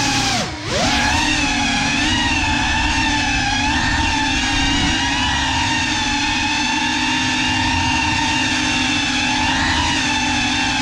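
GEPRC Cinelog 35 cinewhoop's brushless motors and ducted 3.5-inch propellers whining in flight, recorded by the GoPro on the drone. About half a second in, the pitch dips sharply and climbs back as the throttle is chopped and reapplied, then it holds steady with small wavers.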